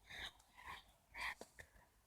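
A person whispering softly: three short whispered bursts in the first second and a half.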